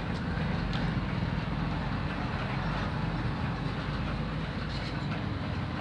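Steady low rumbling background noise with no speech, even throughout.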